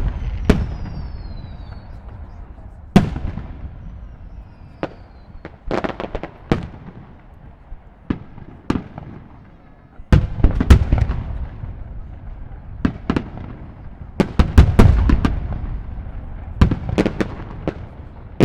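Aerial fireworks shells bursting, single sharp booms and quick volleys of cracks, each followed by a low rolling echo. Denser volleys come about ten seconds in and again around fourteen to fifteen seconds in.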